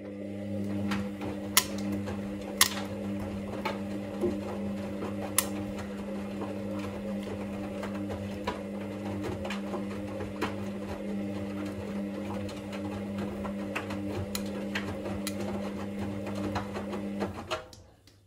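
A laundry machine's electric motor running with a steady hum, with a few sharp clicks scattered through it; it stops near the end.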